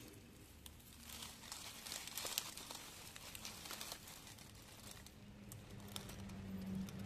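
Faint crinkling and rustling of a nylon mesh insect net being handled among dry leaves and grass, with scattered small clicks. A faint low hum comes in about five seconds in.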